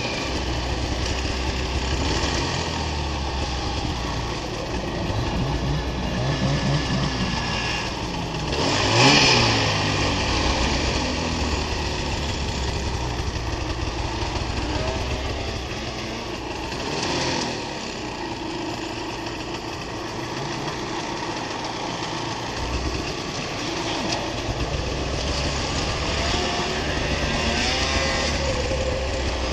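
Snowmobile engine running under way, its pitch rising and falling with the throttle, with a louder revving surge about nine seconds in and another smaller one near the middle.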